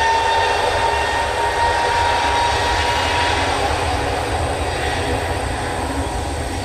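Airbus A320's jet engines running on the runway: a steady high whine over a low rumble, the whine fading a little after about three seconds.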